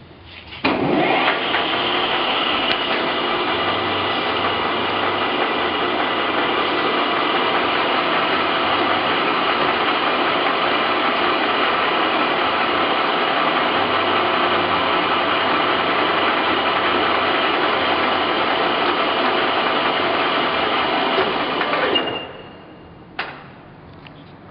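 Howa Sangyo Model 1000 engine lathe running under power: it starts up about a second in and runs steadily, a mechanical whirr with several steady whining tones from the drive. Near the end it cuts off and spins down, followed by a single click.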